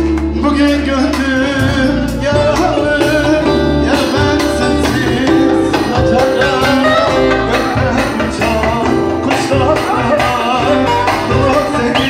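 Live amplified Turkish folk (türkü) music: a long-necked saz (bağlama) with a steady beat, and a man singing into a microphone.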